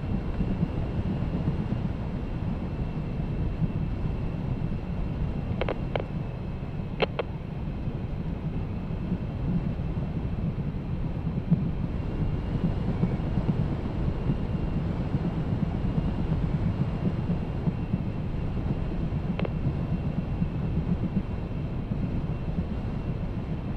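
Steady low rumble of wind buffeting the microphone over a vehicle driving, with a faint steady high whine and a few short clicks near the middle.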